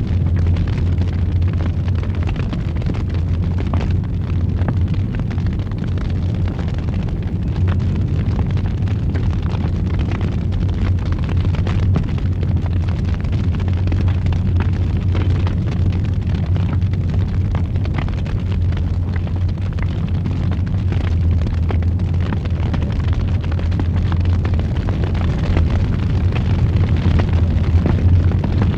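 Wood fire in a fireplace roaring, with a steady low rumble and frequent small crackles and pops throughout.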